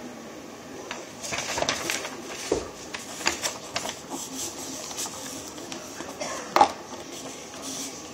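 Paper rustling and scraping as a hand handles a sheet right against the microphone: irregular rustles and small taps, with one sharper knock about six and a half seconds in.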